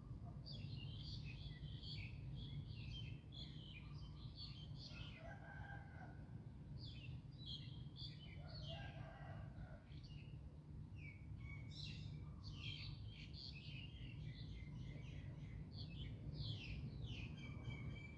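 Many small birds chirping and twittering over a steady low rumble. Two lower, longer calls come through about five and nine seconds in.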